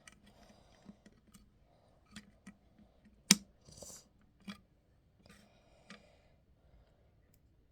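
Plastic Lego pieces clicking and clattering as they are handled and pressed together, with a few light rustles; one sharp click about three seconds in is the loudest.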